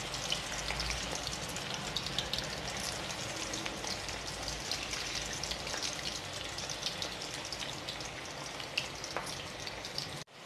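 Battered cauliflower florets deep-frying in hot oil in a steel kadai: a steady sizzle full of fine crackles as they fry toward golden and crisp. The sound breaks off for a moment near the end.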